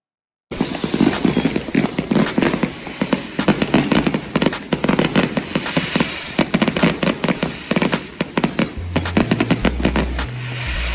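Many fireworks and firecrackers going off at once: a dense run of overlapping bangs and crackling pops that starts about half a second in and keeps going without a break. Near the end a low bass line of music comes in underneath.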